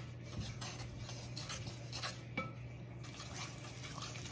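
A utensil stirring and scraping a gritty mix of washing soda, baking soda and Epsom salts in a bowl, with irregular small clinks and scrapes.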